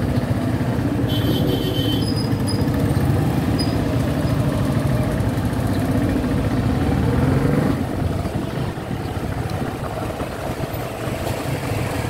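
Motorcycle engine running at low speed in street traffic, easing off about eight seconds in.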